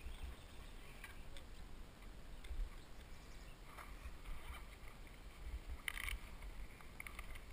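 Quiet outdoor ambience: a low wind rumble on the helmet-camera microphone, with a few faint clicks and a short scuff about six seconds in.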